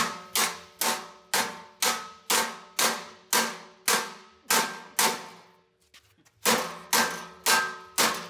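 Hammer blows on a Brinks padlock frozen with canned air duster, hung on a steel bar: a rapid series of ringing metal clangs, about two a second, with a short pause before the last four.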